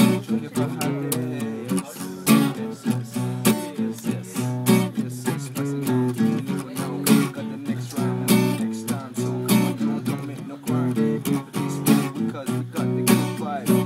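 Acoustic guitar strummed in a steady rhythm, playing a repeating chord pattern.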